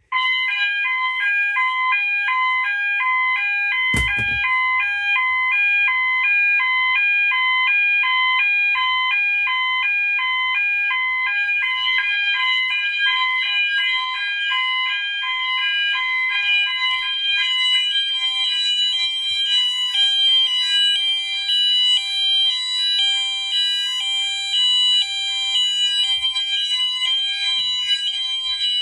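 Several fire alarm sounders going off together, set off by a heat detector tripped with a magnet: a steady high tone over rapidly alternating, pulsing tones. The pulsing grows busier after about twelve seconds, and there is a single knock about four seconds in.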